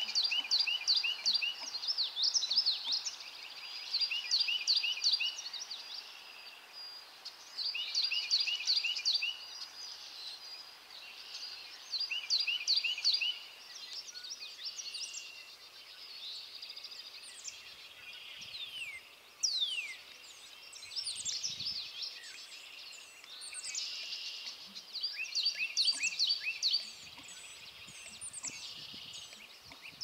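Small birds singing in a marsh. One repeats a short phrase of quick notes over and over, a few seconds apart, with other chirps and gliding calls in between.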